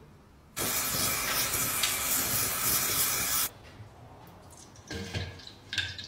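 A steady spray-like hiss for about three seconds that stops abruptly, then a few soft liquid sounds as a metal meat-grinder auger is lowered into a bowl of liquid.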